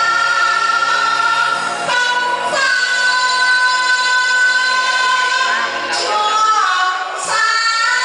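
A woman singing into a handheld microphone with musical accompaniment, holding long sustained notes.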